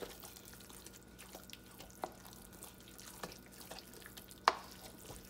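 A spoon stirring wet cornbread dressing in a stainless steel mixing bowl: soft squelching scrapes with scattered light clicks of the spoon on the metal, and one sharper clink near the end.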